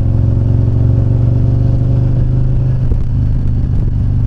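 Harley-Davidson V-twin motorcycle engine running at a steady speed while under way.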